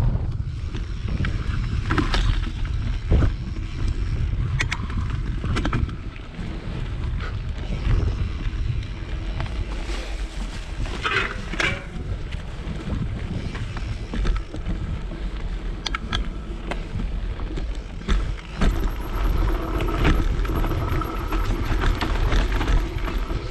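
Mountain bike ridden along a dirt trail: a steady low rumble of wind and tyres on the microphone, with scattered knocks and rattles as the bike goes over bumps. In the last few seconds the freewheel ticks fast while the bike coasts.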